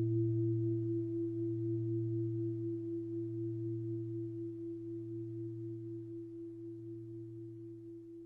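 A mindfulness bell's long ring dying away after a strike, a few steady pure tones with a slight waver, fading slowly toward silence.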